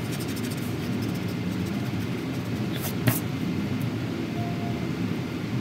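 Steady low rumbling background noise, even in level throughout, with one short click about three seconds in.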